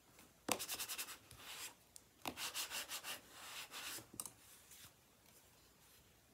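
A hand rubbing across cardstock, pressing a freshly glued paper layer flat. There are two spells of quick rubbing strokes, each lasting about one and a half to two seconds.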